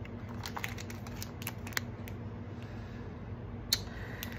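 Light clicks and taps of small camera accessories and their packaging being handled, a handful of sharp ticks spread through, over a faint steady low hum.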